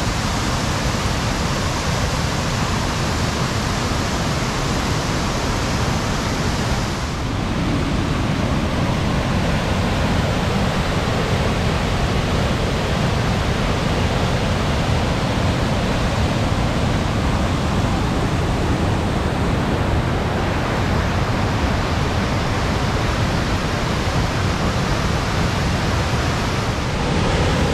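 Steady rushing of a large waterfall and rapids running high, spread evenly from a deep rumble to a hiss. The sound shifts abruptly about seven seconds in.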